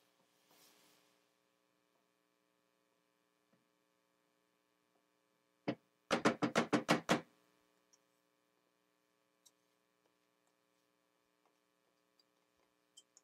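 A wooden spoon knocking against a stainless steel saucepan: one knock, then a quick run of about eight knocks in about a second, about halfway through.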